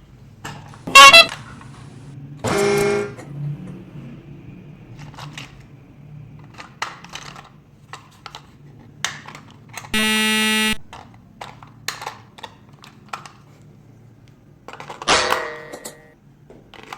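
Toy train's electronic horn giving short toots, the loudest a steady tone lasting about two-thirds of a second about ten seconds in, among scattered light clicks over a low hum.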